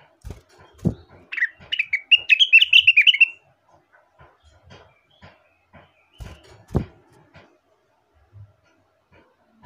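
A leafbird (rengganis / cucak wilis) singing a fast run of short chirping notes for about two seconds. A few dull low thumps come before and after the song.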